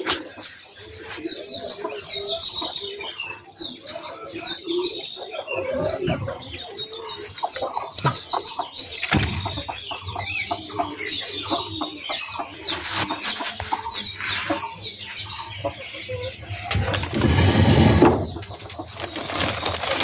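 Chicks cheeping in many short, high, falling peeps while an Aseel hen clucks low. Several bursts of scuffling noise come through, the loudest near the end.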